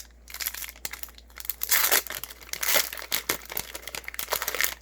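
Foil booster-pack wrapper crinkling and crackling as it is opened, loudest about halfway through.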